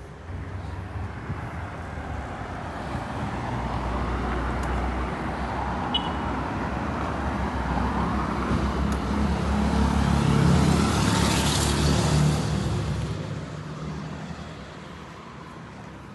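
Engine of a Honda XR 250 Tornado, a single-cylinder four-stroke motorcycle, running. It grows steadily louder to a peak a little past the middle, then fades away, like the bike riding up and past.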